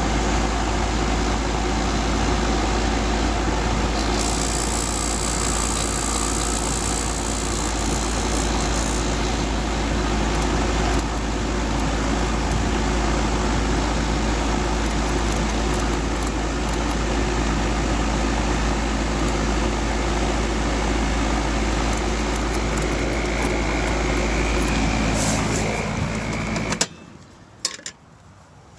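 Outdoor AC condensing unit running steadily during a pump-down with the liquid line shut, the compressor and condenser fan humming. The sound cuts off abruptly near the end.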